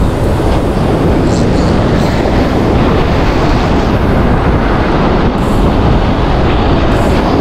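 Strong wind blowing on the microphone over heavy surf breaking on rocks: a loud, steady rumbling noise.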